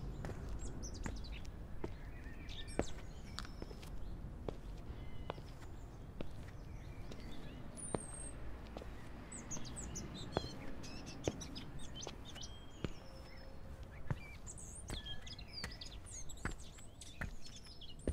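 Small birds chirping and twittering in short, scattered calls over a steady low outdoor rumble, with irregular sharp clicks throughout.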